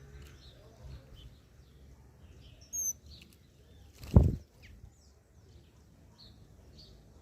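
Small birds chirping with many short, high calls, and one brief, clear high whistle near three seconds in. A single loud, dull thump about four seconds in is the loudest sound.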